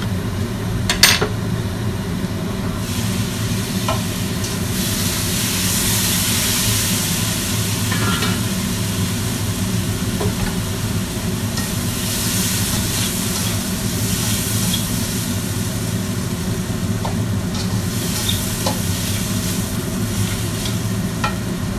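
Food sizzling in a black wok on a gas stove while a spatula stirs and scrapes through it, with small ticks of the spatula against the pan. The sizzling swells about three seconds in. A steady low hum runs underneath, and there is one sharp clatter about a second in.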